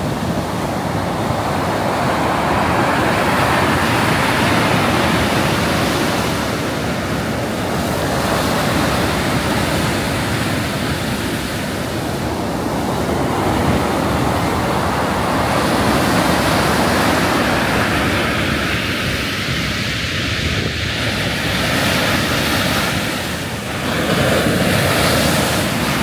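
Storm surf on the Black Sea: waves breaking and washing up the shore in heavy foam, a continuous rush that swells and eases every few seconds. Wind gusts on the microphone.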